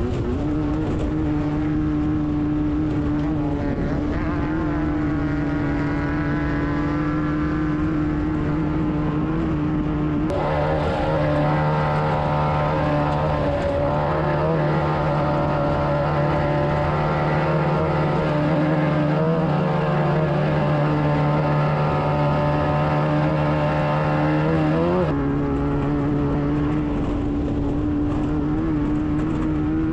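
Air-cooled VW flat-four engine of a Class 9 desert race buggy running hard at a nearly steady pitch, dipping and rising again briefly about five seconds before the end.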